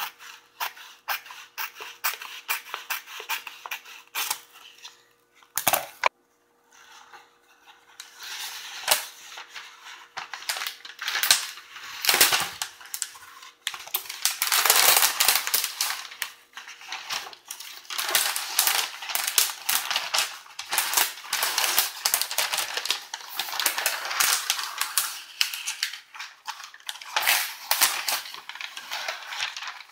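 Sheet of adhesive contact paper crackling and snapping as it is handled and its paper backing is peeled away. Sharp separate clicks at first, a short pause about six seconds in, then denser, continuous crackling.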